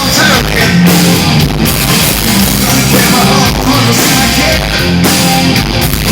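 Loud rock music with vocals and guitars.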